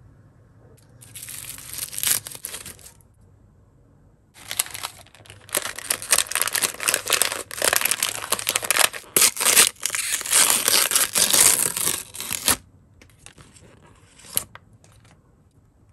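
Plastic wrapper bag of an L.O.L. Surprise doll being torn open and unwrapped by hand: a short burst of crinkling about a second in, then several seconds of steady tearing and crinkling that stop about three seconds before the end, with a few faint rustles and a single click after.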